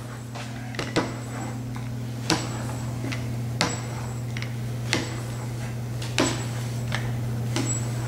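A series of light, sharp knocks, about one every second and a half, over a steady low hum.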